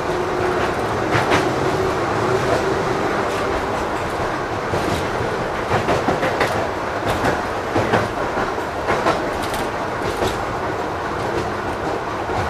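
LVS-86K articulated tram running along the track, its wheels knocking over the rail joints in irregular clacks over a steady rumble. A faint steady hum fades out in the first few seconds.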